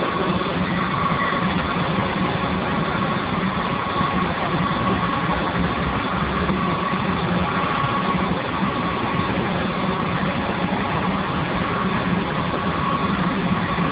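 Steam boiler running: a steady, even rushing noise with a faint high tone held above it and a low hum underneath.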